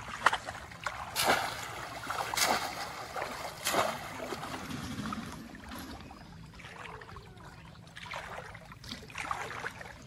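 Shallow water splashing and sloshing as people wade through it and push a bamboo cone fish trap down into it, with a series of short splashes, several in the first four seconds and more near the end.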